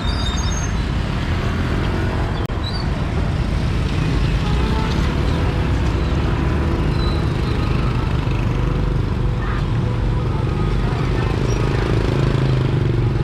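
Steady low engine rumble with traffic noise on a river car ferry, holding even throughout, with a few faint high chirps near the start.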